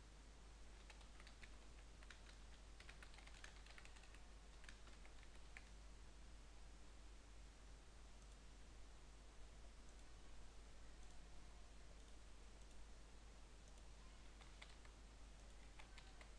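Faint typing on a computer keyboard: a run of keystrokes over the first several seconds, a pause, then a few more keystrokes near the end.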